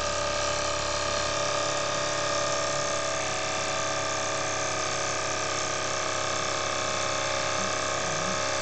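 Small brass single-cylinder oscillating model steam engine running fast and steady, giving a continuous buzzing hiss.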